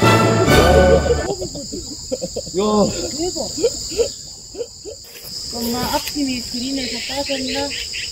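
Steady high-pitched chirring of insects in the surrounding grass and trees. In the first second a short, loud pitched sound effect plays, and faint voices come and go after it.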